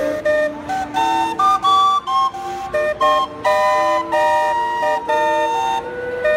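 The steamboat Natchez's steam calliope playing a tune: quick, short whistle notes with chords held underneath.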